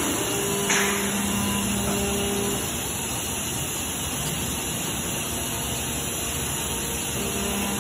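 Homag BMG 311 five-axis CNC router running: a steady machine drone with a hum that fades out after a couple of seconds and comes back near the end, and a short hiss about a second in.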